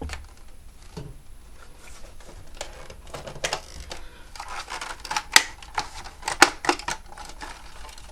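Irregular clicks, taps and short scrapes of plastic and metal parts being handled as a digital set-top box is taken apart, coming thicker in the second half.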